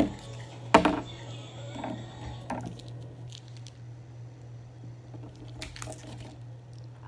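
Plastic bag of shredded cheese crinkling and rustling as a hand reaches in and handles it, with a sharp knock about a second in. A steady low hum runs underneath.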